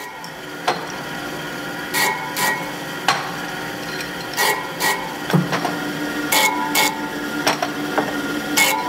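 Electric motor driving a sanding disc runs with a steady hum while brake shoe linings are pressed against it, giving short grinding rasps in pairs about every two seconds. Sharp clicks of metal parts knocking come in between.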